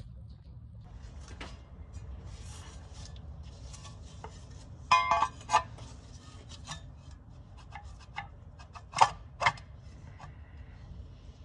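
Steel flexplate being handled and fitted onto the crankshaft flange of a GM LS V8, with metal scraping and clinking. A loud ringing metallic clank comes about five seconds in, and two sharp clanks follow close together around nine seconds in.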